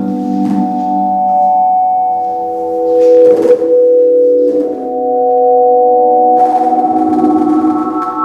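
Sustained electronic tones from a body-movement-controlled audiovisual instrument, a held chord that shifts a few times. A brief swishing noise rises about three seconds in, and a fluttering noise joins the tones from about six and a half seconds.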